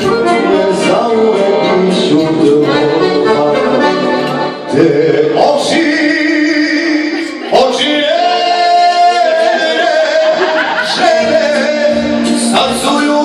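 A man singing a Serbian love song into a handheld microphone over instrumental accompaniment, holding long notes with vibrato.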